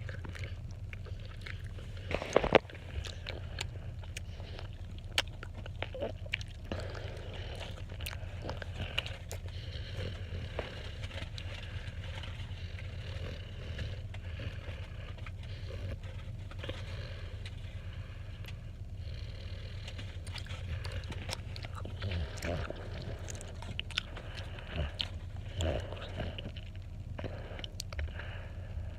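Close mouth noises of someone chewing and working a marshmallow through the teeth, with many small wet clicks and one sharper click about two and a half seconds in, over a steady low hum.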